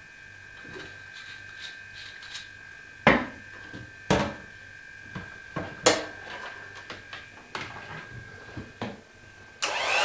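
Several sharp knocks and clicks as cups, utensils and an electric hand mixer are handled on a kitchen counter. Near the end the hand mixer switches on and runs with a loud whir, its pitch rising as it speeds up, to froth the milk.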